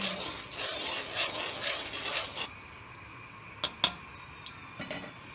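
Metal tongs scraping and rasping around the inside of a metal cooking pan for about two and a half seconds, then several sharp clicks of the tongs near the end.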